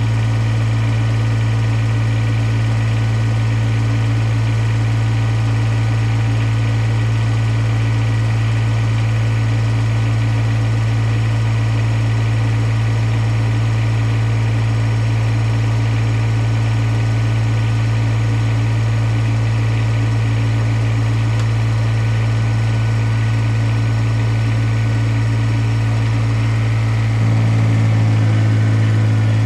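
Kubota BX1850 compact tractor's three-cylinder diesel engine idling steadily. Near the end the engine note changes and gets a little louder.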